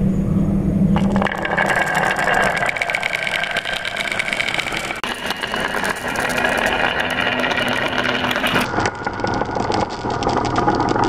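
Glass marbles rolling along wooden marble-run tracks and clicking against the wood and each other: a dense, continuous rattle of clicks with a ringing note that changes pitch a few times.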